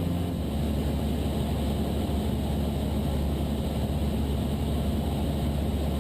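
Cessna 172's piston engine and propeller droning steadily in flight, heard from the cockpit, with a slight change in tone about half a second in.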